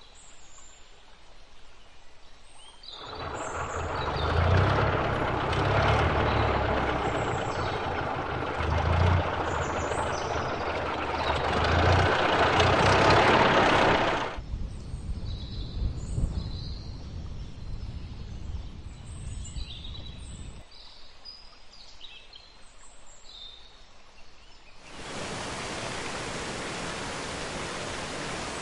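Faint birdsong, then a car engine running and passing for about ten seconds with a low, uneven chugging. Birds chirp again after it fades, and near the end a steady rush of falling water starts suddenly.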